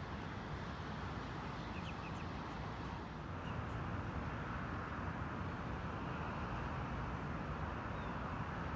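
Steady outdoor background noise with a low rumble, and a few faint bird chirps.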